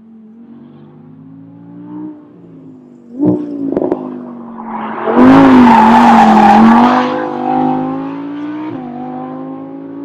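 Audi R8 prototype's V10 engine at speed, its pitch rising and falling as it accelerates and shifts. About five seconds in it passes close and is loudest for about two seconds, with a rush of noise over the engine, then fades.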